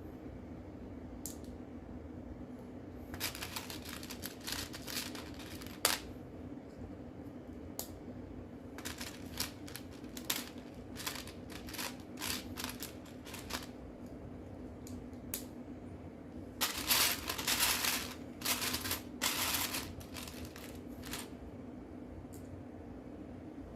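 Loose plastic Lego pieces clicking and rattling against each other in bursts as they are pushed aside and sorted through by hand in a search for one piece. The rattling comes in three spells, the loudest near the end, over a steady low hum.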